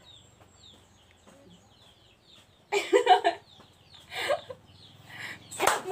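Chicken clucking, with faint, rapid, high peeping chirps in the first two seconds, then a couple of louder clucking calls about halfway through. A short laugh follows, and a sharp knock comes near the end.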